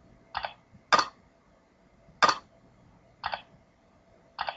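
Five short, sharp computer clicks about a second apart, several of them doubled as a press and release: a chess program's board being stepped forward move by move.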